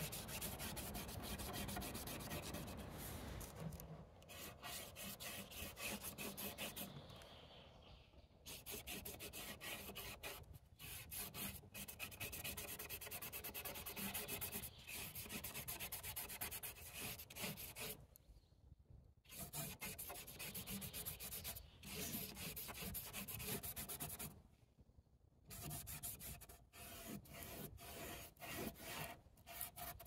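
Paintbrush scrubbing paint onto paper taped to an easel: runs of quick back-and-forth scratchy strokes, broken by brief pauses several times.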